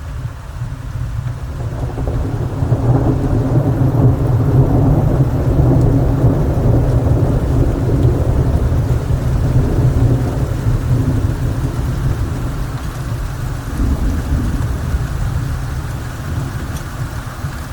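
Long roll of thunder that builds over a couple of seconds, stays strong for several seconds and slowly dies away, over steady rain.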